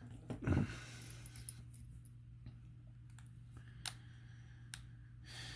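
Faint, scattered clicks and light metallic taps from handling a small padlock and screwdriver, over a steady low hum.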